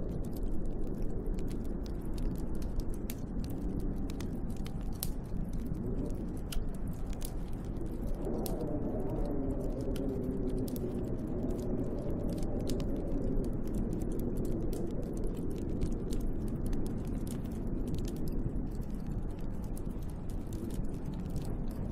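Wood fire crackling with frequent sharp pops over a steady low rush of storm wind. From about eight seconds in, the wind howls, wavering up and down in pitch for several seconds before settling back.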